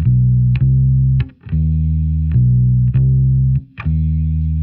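Instrumental intro of a funk-rock song: electric guitar and bass guitar play a repeating riff of held low notes through effects, with short breaks between phrases.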